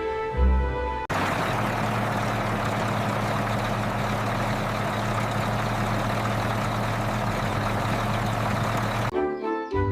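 A motor running steadily with a constant low hum under an even hiss. It cuts in suddenly about a second in, replacing background music, and stops abruptly near the end as the music returns.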